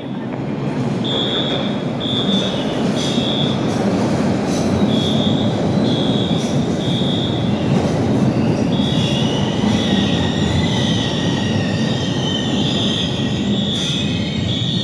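Orange Line subway train running at the platform with a steady rumble, its wheels squealing in a high, wavering whine from about the middle on. Under it the station fire alarm sounds short high beeps that repeat about once a second.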